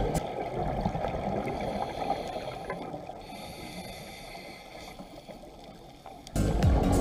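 Muffled underwater rush recorded through a dive camera housing, with a scuba diver's exhaled bubbles, fading gradually over several seconds. Background music cuts back in suddenly near the end.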